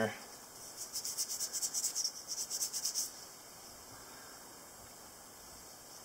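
Toothbrush bristles scrubbing quickly back and forth over an old Ka-Bar pocket knife's blades and liners, working loosened crud out of the joints. The scrubbing is a scratchy rasp of several strokes a second and stops about three seconds in.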